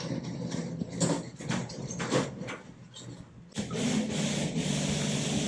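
Metal flatbed hand cart rolling over a concrete walkway, its wheels and deck rattling with scattered clicks and knocks, then a steadier rolling rumble for the last two seconds.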